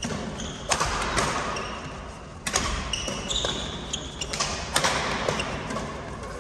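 Badminton rally: rackets strike the shuttlecock with about half a dozen sharp cracks, while court shoes squeak briefly on the floor. Each hit rings out in the large hall.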